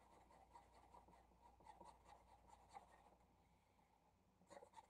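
Faint scratching of a felt-tip marker drawn across paper in repeated short strokes while colouring, a little louder near the end.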